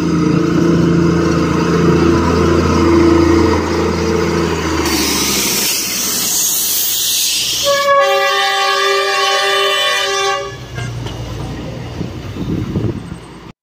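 Darjeeling Himalayan Railway toy train passing close by. The small diesel locomotive's engine gives a low steady drone for the first five seconds, then a loud hiss comes as the coaches go by. A horn sounds for about two and a half seconds from around eight seconds in, followed by the coaches rumbling along the narrow-gauge track.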